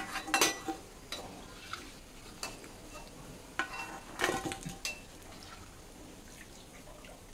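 Perforated steel skimmer clinking and scraping against a steel kadai and plate as fried urad dal vadas are lifted out of the oil, with clanks near the start and a cluster about four seconds in. Hot oil sizzles faintly underneath.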